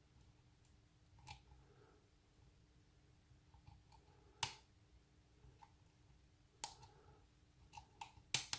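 Lock pick and tension wrench working inside a night latch's cylinder: faint, scattered metallic clicks, a handful spread over the seconds and a quick cluster near the end.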